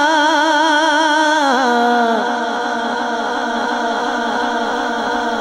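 A man singing a naat with no instruments. A long held note with a fast vibrato slides down about a second and a half in, then the singing settles into lower, steadier held tones.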